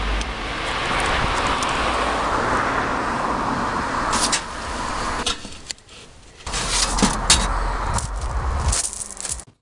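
A car passing on the road, its tyre hiss swelling and fading over the first few seconds, followed by a few sharp clicks and knocks as the mailbox flap is handled and shut.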